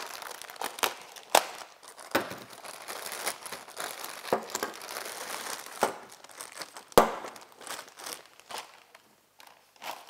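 Clear plastic bag crinkling and rustling as a coiled air hose is pulled out of it, with scattered clicks and one sharp knock about seven seconds in; the crinkling thins out near the end.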